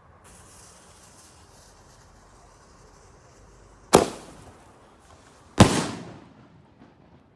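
A burning fuse hisses for about four seconds. A homemade aerial shell then fires from the ground with a sharp bang and bursts overhead with a second loud bang about a second and a half later, each bang trailing off in an echo.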